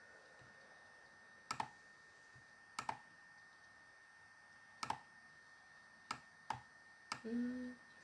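Computer mouse clicks, each a quick press-and-release pair, about six times at irregular intervals. A short low hum comes about seven seconds in.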